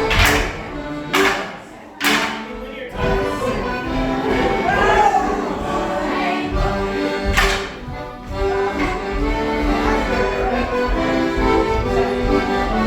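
Accordion playing a Fieldtown Morris dance tune, with several loud sharp strikes cutting through the music at uneven intervals.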